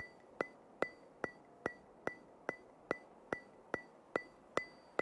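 Steady, evenly spaced ticking, about two and a half ticks a second, each tick with a brief bright ring.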